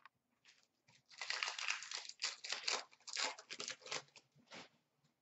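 Foil wrapper of a 2017-18 Upper Deck Series 2 hockey card pack crinkling and tearing as it is ripped open and handled, a run of crackles lasting about three and a half seconds.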